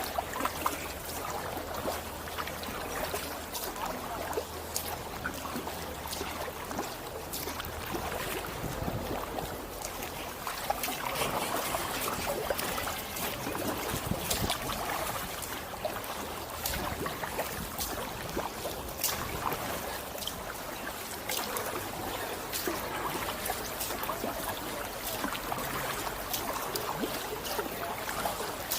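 Kayak paddle dipping into canal water, with continual splashing, trickling and dripping from the blades as the kayak is paddled along. A steady low hum runs under it for the first several seconds.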